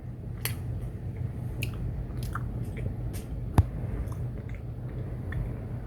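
Steady low rumble of storm wind with scattered small clicks and taps, and one sharp click about three and a half seconds in.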